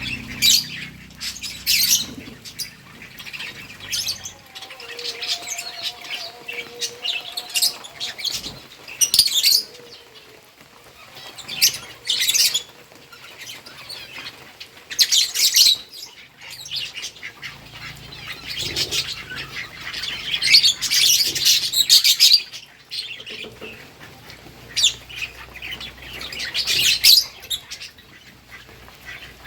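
Lovebirds chirping and squawking in short shrill bursts every second or two, with denser clusters of calls around the middle and later on. A faint low rumble sits underneath at times.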